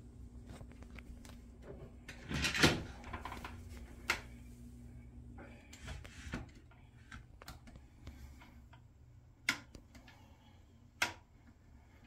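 Scattered knocks and clicks of objects being handled, the loudest about two and a half seconds in and a few sharper ones later, over a faint steady hum that fades out about halfway through.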